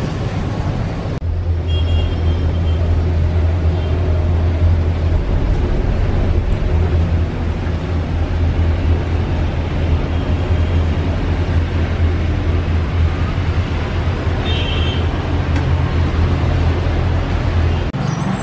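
Steady low hum with a rushing noise inside a moving gondola cable-car cabin, with a faint brief high squeal twice, about two seconds in and near the end.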